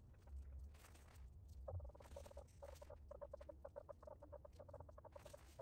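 Faint bird calls: a rapid run of short, evenly pitched clucks, about five a second, starting a little under two seconds in, over near silence.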